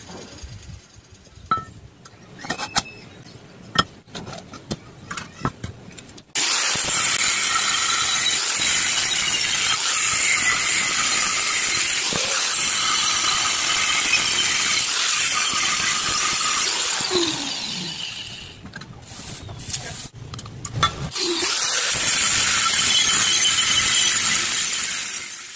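An electric angle grinder with a thin cut-off disc cuts through a metal plate with a loud, steady, high screech. The cutting starts suddenly about six seconds in, stops for a few seconds with some knocks and clicks of handling, then resumes and winds down near the end. Scattered knocks and clicks come before the first cut.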